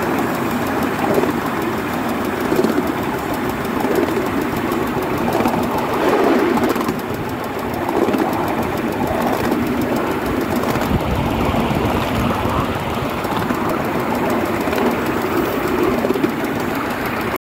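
Ride-on miniature steam locomotive running along the track, heard from on board: a steady running noise of the engine and its wheels on the rails.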